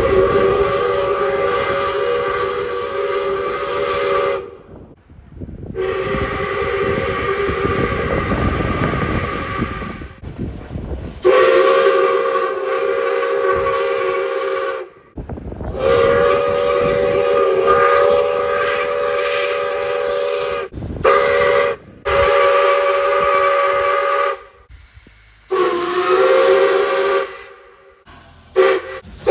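A train's chime whistle blowing a series of long blasts, each a steady chord of several tones, most likely a steam locomotive whistle. The blasts start and stop abruptly, about seven of them, with hissing and train rumble under some.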